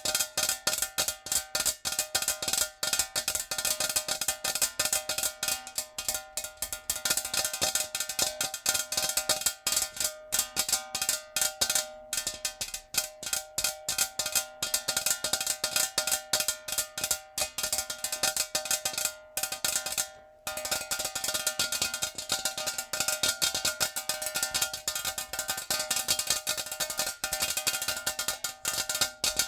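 Natural fingernails tapping fast on a metal jar, a dense run of quick clicks over the jar's ringing metallic tones. The tapping breaks off briefly a couple of times, about twelve and twenty seconds in.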